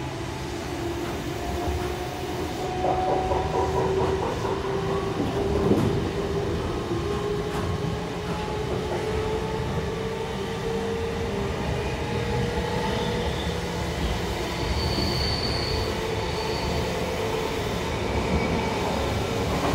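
Inside a heritage S set double-deck electric train accelerating away: a whine rising steadily in pitch over the rumble of the wheels on the rails.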